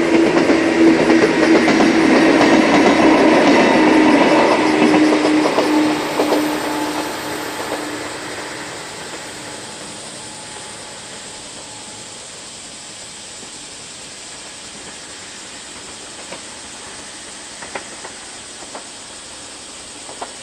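A 103 series electric train passing over a level crossing and fading away, with the crossing's warning bell ringing in a quick steady repeat until it stops about seven seconds in. After that a steady faint hiss remains, with a few faint clicks near the end.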